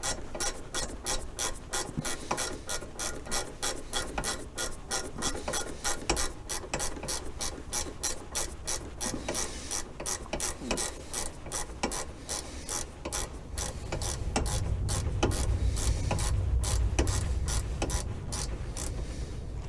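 Ratchet wrench clicking steadily as it is swung back and forth to run down and tighten a nut, about two to three clicks a second. A low rumble comes up in the last few seconds.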